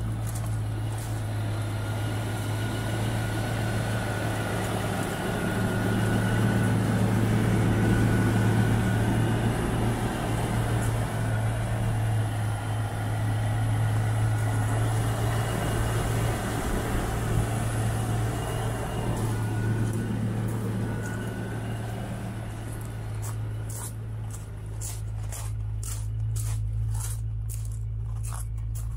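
Range Rover Classic's petrol V8 idling steadily from cold, just after a cold start.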